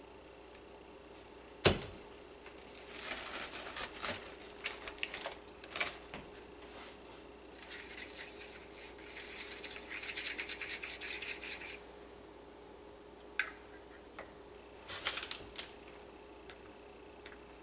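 A sharp knock about two seconds in, then a thin stirring stick scraping round inside a small cup as powdered colourant is mixed into soap batter, in patches and then steadily for a few seconds, followed by a few light taps near the end.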